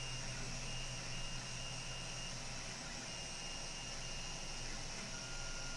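Steady hum and fan noise of a powered 3D printer's cooling fans and electronics, with a faint high whine that comes and goes and a second, lower whine starting near the end.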